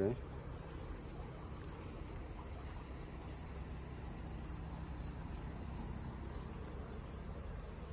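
An insect trilling continuously at one high, steady pitch, over a low even rumble.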